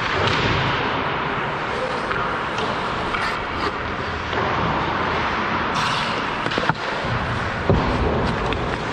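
Ice hockey play at close range: skate blades scraping the ice over a steady rink noise, with a couple of sharp stick-and-puck knocks about two-thirds of the way through.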